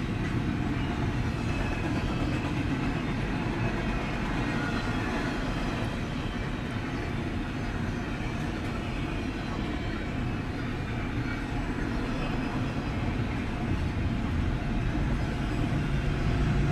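Double-stack intermodal container train rolling past: the steady rolling noise of the well cars' wheels on the rails, heaviest in the low end.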